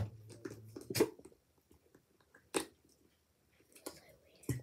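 Children drinking from plastic sports-cap bottles: quiet sips and swallows with four sharp mouth clicks at irregular intervals.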